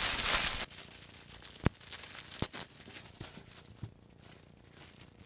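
Plastic packaging bag crinkling, which stops abruptly under a second in; then faint rustling as a fleece pet bed is handled, with two sharp clicks less than a second apart.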